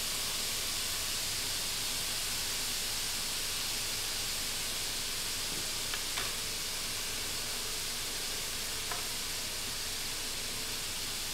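Ground beef sizzling steadily in a hot cast iron skillet, with a couple of faint ticks.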